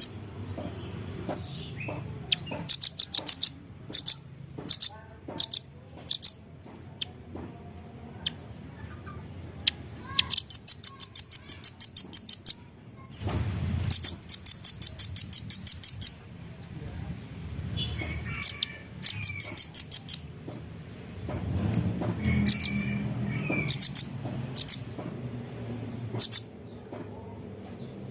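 Velvet-fronted nuthatch (rambatan paruh merah) calling in fast runs of sharp, high notes, about seven a second for up to two seconds at a time, with single notes between the runs.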